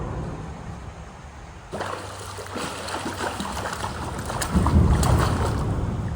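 Water splashing and trickling around a canoe, starting about two seconds in, over a low rumble that swells around the middle.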